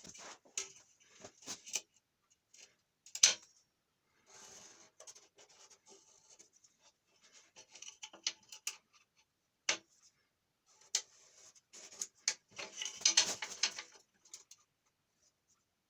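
Scattered clicks, taps and short scrapes of small parts being handled on a workbench. There is one sharp knock about three seconds in and a longer scraping stretch a little after halfway.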